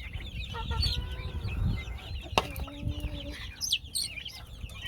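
A group of chicks peeping constantly in many quick, high chirps, with some clucking among them. A sharp click comes about two and a half seconds in.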